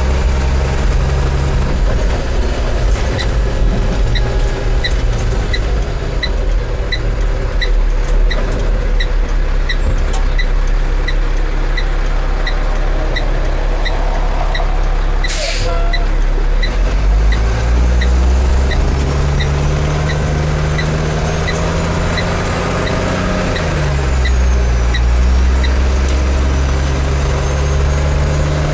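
Diesel engine of a 2005 Autocar Xpeditor garbage truck heard from inside the cab while driving. There is a short hiss about halfway through, then the engine climbs in pitch as the truck accelerates and drops again at a gear change. A light ticking about twice a second runs through most of it.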